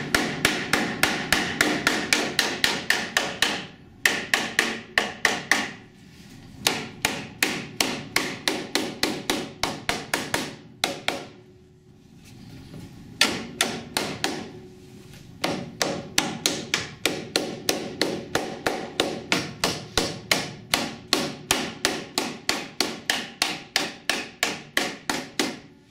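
A hammer strikes a steel bar held against a car's steel front frame rail in quick runs of metallic blows, about three to four a second, with a few short pauses. The rail is under pulling tension, and the blows knock a crease out of it.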